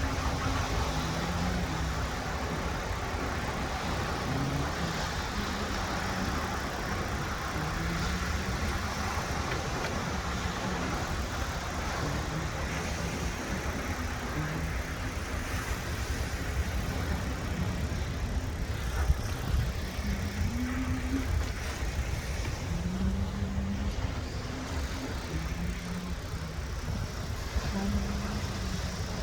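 Steady wash of sea surf and wind at the shore, unbroken for the whole stretch.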